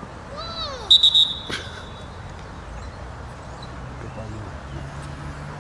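Referee's whistle blown once about a second in, a shrill steady blast lasting about a second and the loudest sound, just after a short rising-and-falling shout. A single knock follows soon after.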